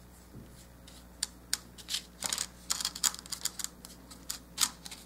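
An eyeshadow brush dabbing and scrubbing powdered chalk pastel on a paper plate and a polymer clay figure: irregular light ticks and scratchy taps, several a second, over a low steady hum.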